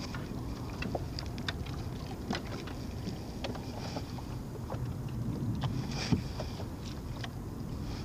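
Steady low rumble of water and wind around a small fishing boat, with scattered light clicks and knocks from rod, reel and hull handling. One sharper knock comes about six seconds in.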